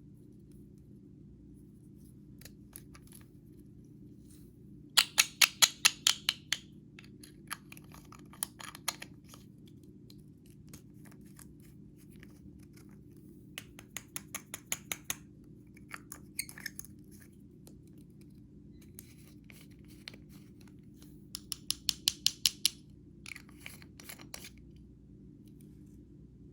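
Quick runs of sharp clicks and pops in three main bursts, about five or six clicks a second, with scattered single clicks between them. A steady low hum runs underneath.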